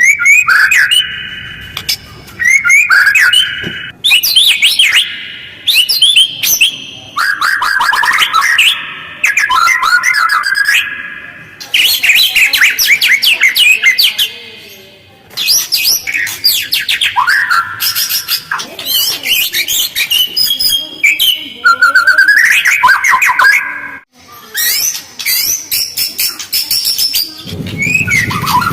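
White-rumped shama singing in fast, harsh phrases of rapid trills and chattering notes, with only short pauses between phrases.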